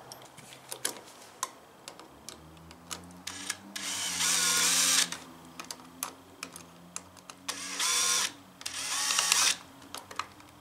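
Cordless drill-driver driving screws into a metal electrical outlet box. The motor runs in three bursts, the first and longest about a third of the way in, with small clicks and clinks of hardware being handled before it.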